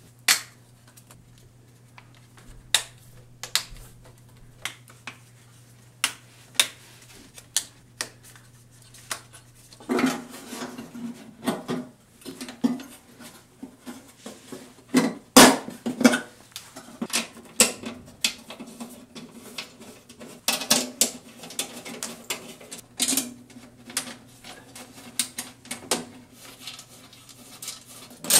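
Irregular sharp clicks and clatter of a Toyota Prius hybrid battery pack being reassembled by hand: plastic protective covers snapped into place over the bus bars, then the sheet-metal case cover handled and pressed down, with metallic knocks.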